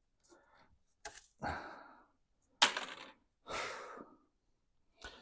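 Short clicks and scrapes with one sharp crack-like hit about two and a half seconds in, from a trim strip being worked off a classic Mini's door.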